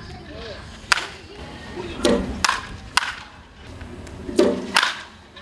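Baseball batting practice: a wooden bat hitting pitched balls, several sharp cracks about a second apart with a couple of duller, fuller hits among them.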